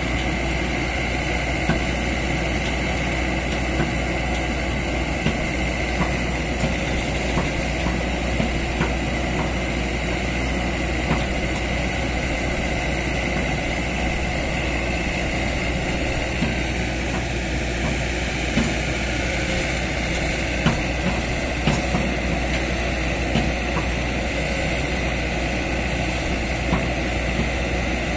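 Kobelco hydraulic excavator's diesel engine running steadily while its bucket pushes into the crown of a coconut palm, with scattered short sharp clicks and knocks.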